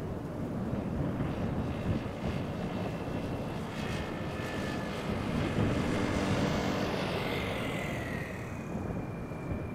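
Jet airliner passing close as it comes in to land, its engines giving a steady rumble with a high whine that falls in pitch about three quarters of the way through as the aircraft goes by.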